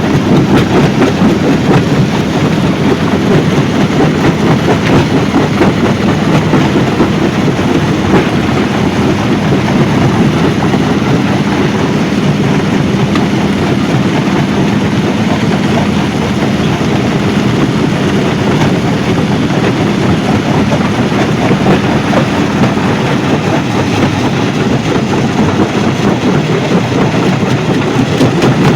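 Stone crushing plant running: a steady, loud mechanical rumble with the dense rattle of crushed stone.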